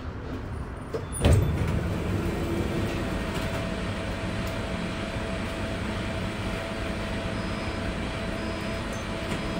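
Inside a Bombardier Flexity tram: a loud thump about a second in, then the tram's steady running noise with a steady tone held over it.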